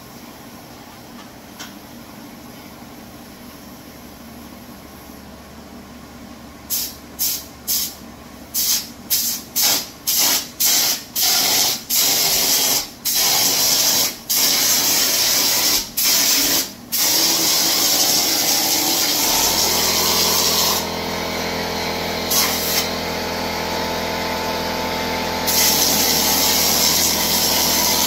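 Pneumatic drywall texture hopper gun spraying onto a ceiling patch: after a few quiet seconds, a string of short bursts of air-and-spray from quick trigger pulls, lengthening into a continuous spray. About two-thirds in, an air compressor motor starts and keeps running under the spray. The spray stops for a few seconds and starts again near the end.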